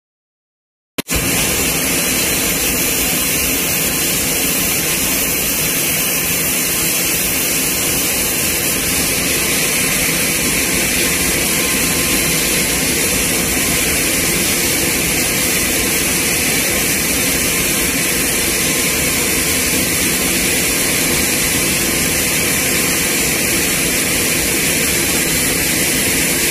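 Loud, steady turbine noise with a constant high whine from a C-130H Hercules running on the ground; it starts abruptly about a second in.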